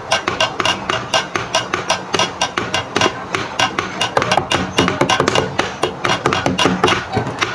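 Background music with a quick, clicking percussive beat over a steady low tone.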